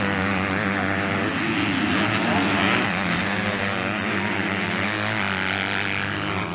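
Four-stroke motocross bikes racing on a dirt track, their engines rising and falling in pitch as the riders work the throttle, over a steady low drone.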